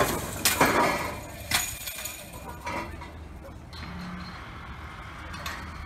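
Scattered clinks, knocks and scrapes of wreckage being handled in the rubble of an exploded, burned-out house, loudest in the first second or so and again near the end, over a low steady outdoor rumble.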